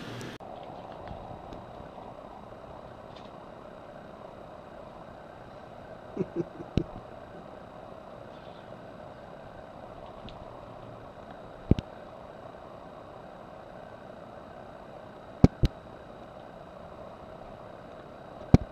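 Steady background hum, broken by a few short, sharp knocks and clicks: a quick cluster of three about six seconds in, a single knock near the middle, a close pair about two-thirds through, and one more near the end.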